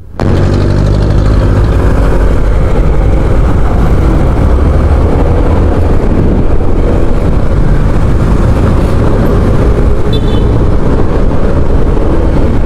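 Honda ADV 160 scooter being ridden on the road: its single-cylinder engine running under a steady, heavy rumble at the microphone. The engine note is clearest in the first two seconds, then blends into the rumble.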